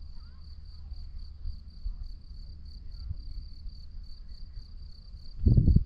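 Crickets chirping in a steady, high, finely pulsing trill over a low rumble, with a brief loud low rumble near the end.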